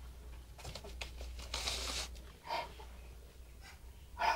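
Cloth rustling and phone handling noise in a few short bursts, over a low steady hum.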